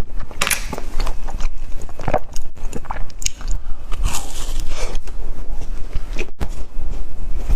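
Close-miked biting and chewing of a peanut-filled snack, with irregular crunchy bites.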